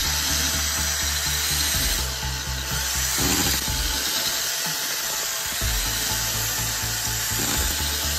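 Power drill spinning a wire brush against the metal inside an outboard's cylinder block, a steady rough grinding as it polishes out salt buildup. Background music with a low bass line plays under it.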